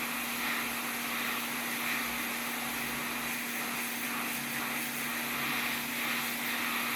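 Hot air rework station blowing steadily with a constant hum, heating low-melt solder to desolder a PS5 port.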